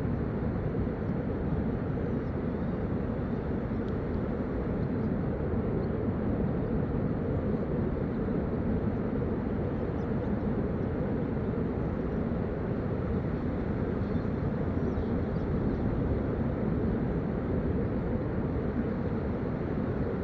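Steady low rumbling noise with no rhythm, breaks or changes in loudness.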